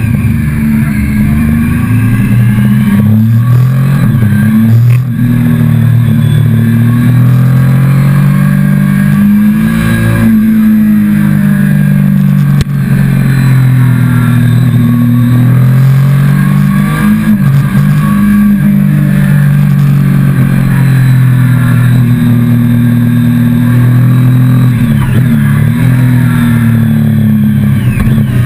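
Motorcycle engine heard close up from the bike itself, its revs rising and falling again and again as it pulls out of bends and eases off into them.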